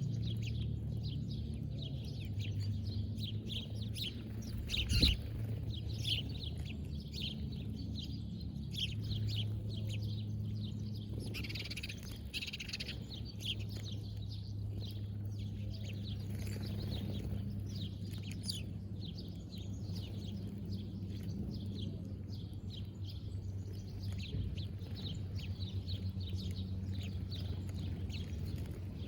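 Birds chirping and calling, many short high chirps coming and going, over a steady low hum. A single sharp click about five seconds in.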